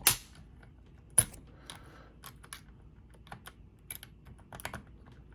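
Small clicks and knocks of a cam lock being handled and clamped in a bench vise, with a sharp knock right at the start and another about a second in, then scattered lighter clicks.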